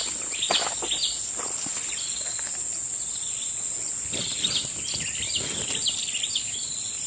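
Steady high-pitched insect drone with birds chirping over it in short repeated bursts, and a few soft rustles.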